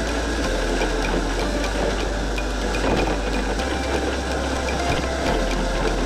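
Onboard sound of a Kyosho Trail King 1/12-scale RC tracked vehicle driving over snow: its small electric motor, gearbox and rubber tracks running with a steady mechanical noise.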